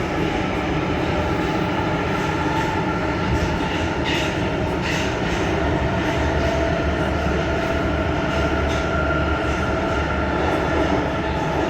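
Metro train running between stations, heard from inside the carriage: a steady rumble with a whining tone and a few clatters of the wheels.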